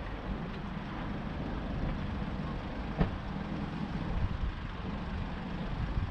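A steady low rumble with noise across the range, and a single sharp click about three seconds in.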